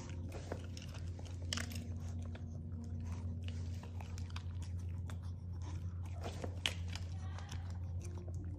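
A Maltese dog crunching and chewing hand-fed dry kibble, with scattered sharp crunches, the sharpest about two-thirds of the way through, over a steady low hum.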